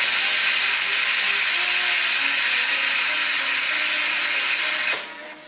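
1930s diathermy machine running from its cauterizing terminal: its high-frequency spark discharge gives a loud, steady hiss that cuts off about five seconds in.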